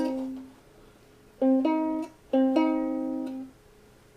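Ukulele strings plucked one at a time while being tuned by ear: a note dying away, then two pairs of plucked notes, each ringing about a second and fading.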